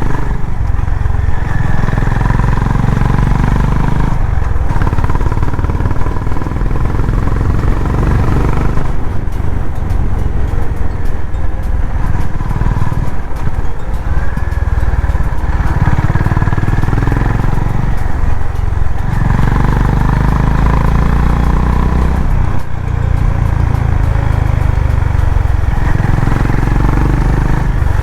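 Honda CB350RS's air-cooled single-cylinder engine running while the motorcycle is ridden, heard from the rider's position. The steady low engine note dips briefly about five times.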